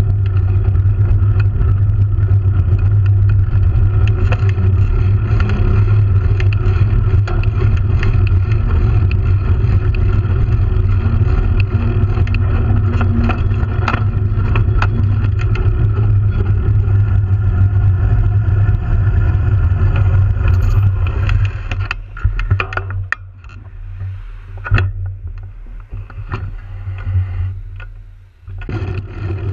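Continuous riding noise picked up by a camera mounted low on a moving bicycle: a loud, steady droning hum and rumble. About 21 seconds in it drops quieter and uneven, with scattered clicks and knocks.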